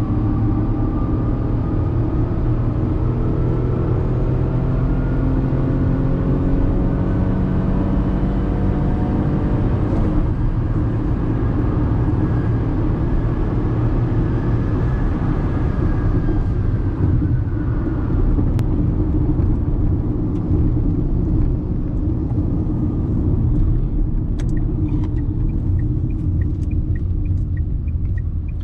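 Tata Punch's 1.2-litre naturally aspirated three-cylinder petrol engine heard from inside the cabin under hard acceleration in a 0–100 km/h run. The engine note climbs steadily, drops at an upshift about ten seconds in, climbs again, then falls away after about seventeen seconds, with road noise throughout.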